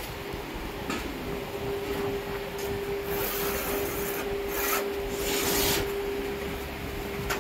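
Pencil scratching along a wooden straightedge on a fibre cement board, marking a line: three short rasping strokes about three, four and a half, and five seconds in.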